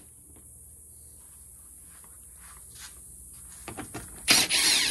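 Cordless impact driver briefly spinning out a T40 Torx screw from a UTV's plastic front bumper near the end, its whine rising then falling, after a few seconds of light clicks as the bit is set on the screw.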